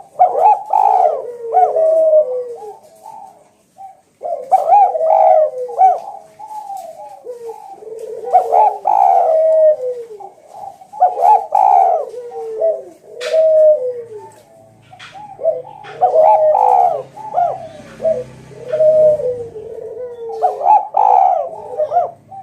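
Javanese spotted dove (tekukur) cooing loudly in a long run of repeated phrases, with a short break about three seconds in; this is the kind of full, ringing call used as a lure to draw out rival doves.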